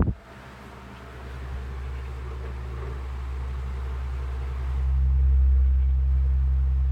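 Vintage Galaxy 12-inch table fan running up to speed: a low motor hum and the rush of air from the blades grow steadily louder over the first five seconds, then hold steady on high.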